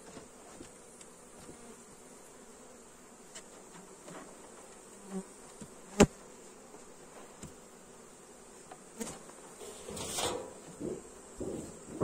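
Honeybees of a swarm buzzing in the air around the hive just after being shaken in. A single sharp click comes about halfway, and a few knocks and rustles from handling the hive come near the end.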